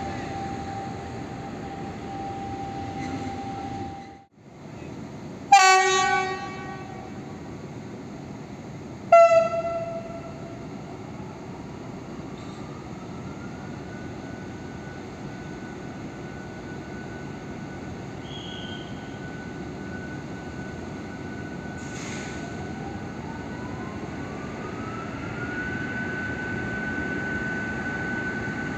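Diesel locomotive pair, an M62 with an SM42 coupled behind, setting off: a short horn blast about five seconds in and a second, higher and shorter blast a few seconds later. Under steady engine noise, a whine then rises and holds at one pitch, twice, as the engine powers up.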